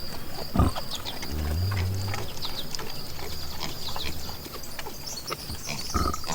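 A sow grunting low while her piglets give short, high squeaks, with a few knocks.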